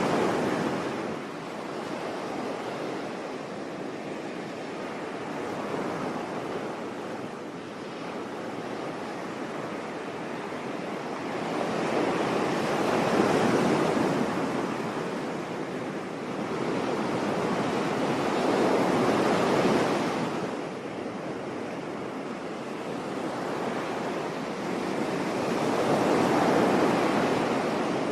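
Sea waves breaking on a beach, a steady wash of surf that swells and recedes every six seconds or so, with four louder surges.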